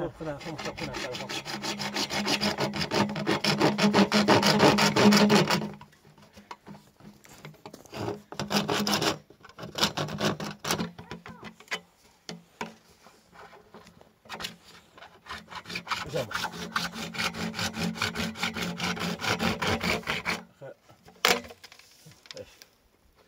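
Hand saw cutting through a grey plastic pipe with quick back-and-forth strokes. There are two long spells of sawing, with a few strokes between them and a single sharp knock near the end.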